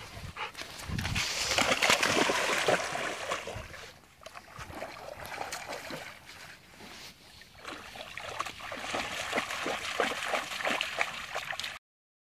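Shallow lake water splashing and sloshing at the shore as a golden retriever wades in, with irregular splashy strokes that cut off suddenly near the end.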